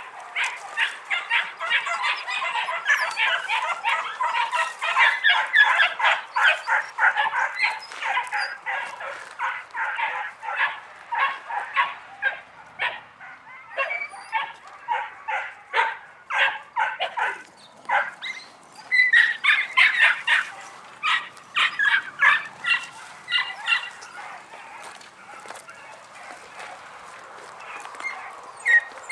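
Several young podenco puppies yelping and barking together in quick, overlapping high yaps. The yapping is thickest in the first ten seconds or so, thins out in the middle, and picks up again about twenty seconds in.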